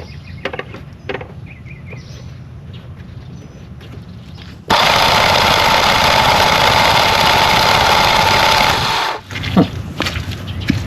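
Generac 20 kW whole-home generator's engine being cranked by its starter: a loud, even cranking noise that starts suddenly about four and a half seconds in, runs for about four and a half seconds and cuts off without the engine catching. The generator is refusing to start after a mixer assembly replacement.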